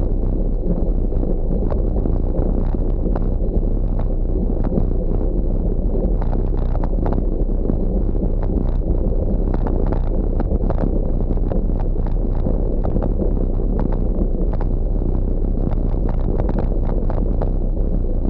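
Wind buffeting the microphone of a camera on a moving bicycle, over the steady crunch of tyres rolling on a loose gravel road, with frequent short clicks and rattles.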